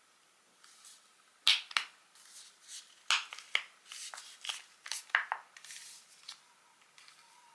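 Close-up handling noises: a quick irregular run of small clicks, taps and rustles, as of light objects or paper being picked up and set down.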